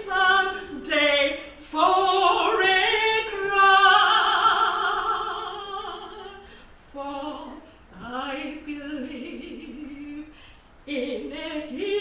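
A woman singing solo, with a long held note that wavers with vibrato about four seconds in.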